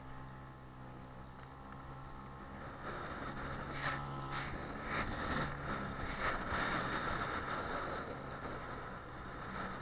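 Small outboard motor running steadily, pushing an inflatable boat through choppy water. About three seconds in, water splashing and slapping against the hull grows louder, with a few sharp knocks or splashes.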